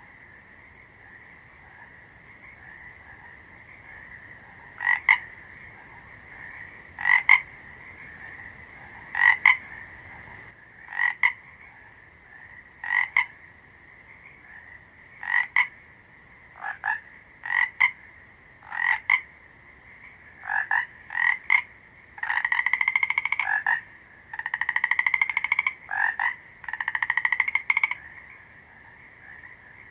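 Frog calling: short loud croaks about every two seconds, then longer pulsed trills near the end, over a steady high-pitched background chorus.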